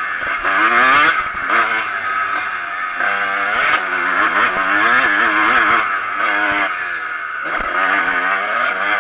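Kawasaki KX125 two-stroke single-cylinder motocross bike under way, heard from the rider's helmet. The engine revs up again and again, its pitch climbing and then dropping back as the rider throttles and shifts, with rushing wind behind it.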